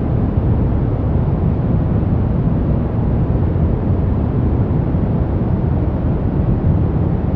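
Steady generated noise of the kind sold as white noise for sleep, unbroken and unchanging. It is deep and dull, with most of its weight in the low end and no high hiss, closer in sound to brown noise than to true white noise.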